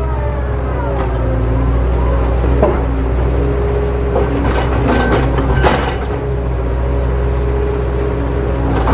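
A motor running steadily with a low hum, with a few clicks and knocks about halfway through.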